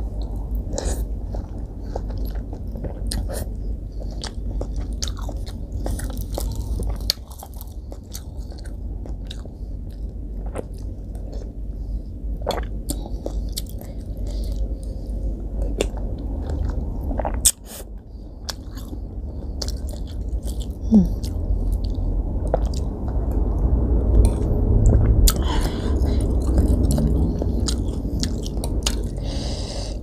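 Close-miked chewing and sipping of noodle soup, with sharp clicks of a metal spoon and fork against the ceramic bowl now and then. The eating gets louder in the last few seconds.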